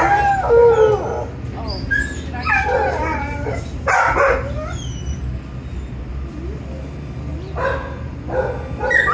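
A dog howling and whining in about five short bouts of wavering, pitch-bending calls, the loudest near the start.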